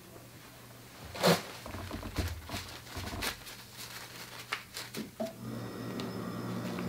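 Rustling and scraping as a wet strip of developed 120 film and a lint-free wipe are handled, with a loud swish about a second in and scattered small clicks. A steady hum comes in about five seconds in.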